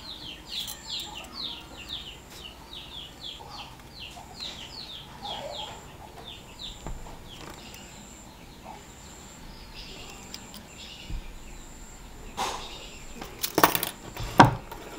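A bird chirping rapidly, a string of short, high, falling chirps about three a second for the first seven seconds or so. Near the end, a few sharp knocks, the loudest sounds here.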